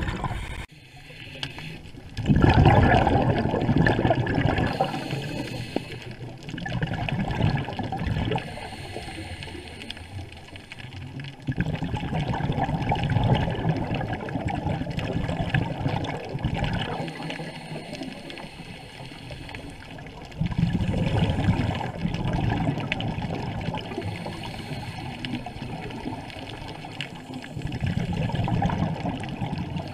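Scuba diver's breathing through a regulator, heard underwater: exhaled bubbles gurgle in loud bursts of a few seconds, about five times, with quieter stretches between.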